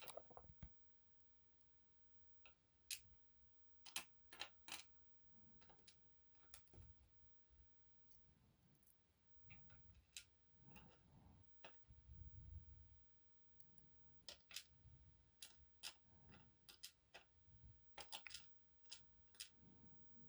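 Faint, scattered clicks of small metal lock sliders from an EVVA 3KS lock being handled and set down one by one.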